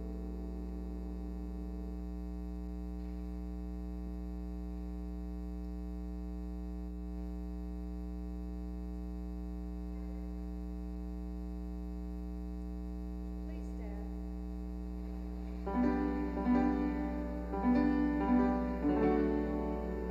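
Steady electrical mains hum, with a faint held note that dies away about two seconds in. About sixteen seconds in, a keyboard starts playing chords of a hymn-like piece.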